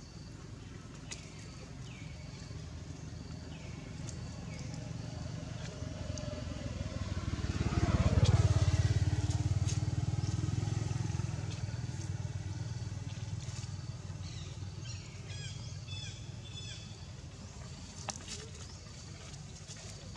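A motor vehicle's engine passing by: it grows louder to a peak about eight seconds in, its pitch dropping as it goes past, then fades away slowly. Short high chirps repeat in the background.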